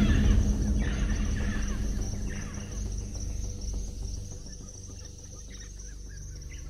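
Steady high insect chirring, like crickets, under a low sustained music score that dies down over the first few seconds.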